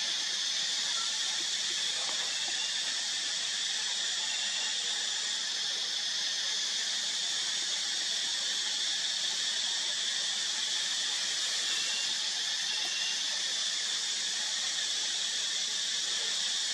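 Steady high-pitched drone of a forest insect chorus, unbroken and even in level throughout.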